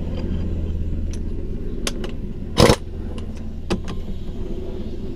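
Impact wrench firing a short burst about two and a half seconds in, driving a 1-inch socket onto the large fitting of a GM power steering pump, with light clicks of the socket and tool being handled. A steady low hum runs underneath.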